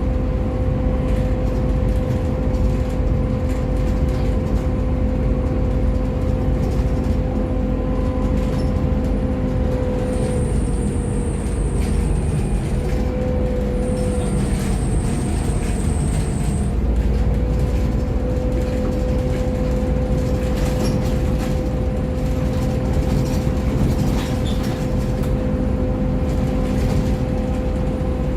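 Volvo B7TL double-decker bus on the move, heard from on board: a steady engine and drivetrain rumble with a constant whine, which dips briefly in the middle. Two long high-pitched beeps sound one after the other in the middle.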